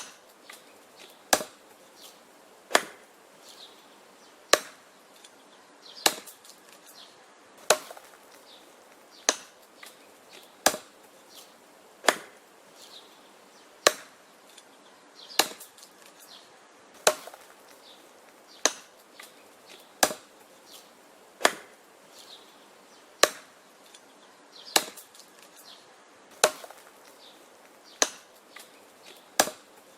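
Wood being chopped: about nineteen sharp chops at a steady pace of roughly one every one and a half seconds, with fainter knocks between them.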